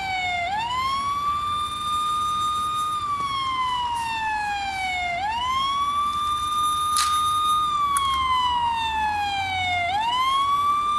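Electronic police siren sounding: a single tone with bright overtones that rises quickly, holds high for about two seconds, then slides slowly down, repeating about every four and a half seconds.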